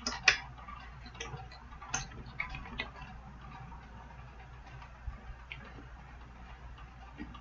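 Small plastic clicks and taps from a toy figure's parts being handled and pushed together: one loud click at the start, then scattered fainter clicks that thin out after about three seconds.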